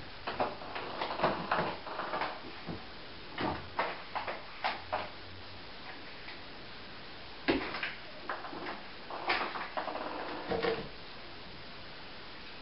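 Ping-pong ball bouncing and clattering on a hard floor as cats bat it around: irregular runs of light clicks and taps, with pauses of a second or two between the runs.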